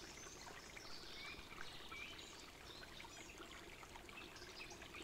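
Faint forest river ambience: running water with many small birds chirping briefly and high.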